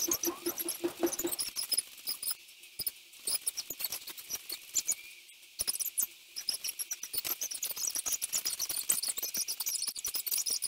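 Sounds of a person exercising barefoot on carpet, sped up sixteen-fold into a fast, dense, high-pitched chatter of clicks and squeaks. In the first second or so there is a short run of evenly spaced pulses.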